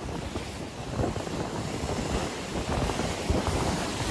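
Strong head-on wind buffeting the microphone over sea swell breaking and washing against the rocks, in gusts that grow a little louder towards the end.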